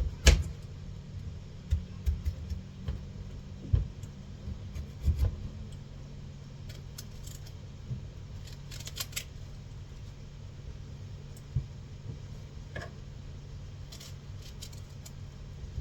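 Knife cutting guava: irregular knocks of the blade against a cutting board in the first few seconds, then lighter clicks and clinks, over a steady low hum.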